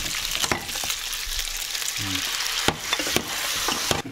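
Pasta sizzling in a hot pan with rendered guanciale fat and starchy pasta water, stirred and tossed, with sharp clicks of the utensil against the pan. The sizzling drops off suddenly near the end.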